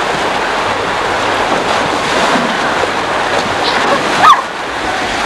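Steady rush of water pouring out of a water slide's chute into its splash pool, with riders splashing in on inner tubes. A brief high cry cuts through about four seconds in.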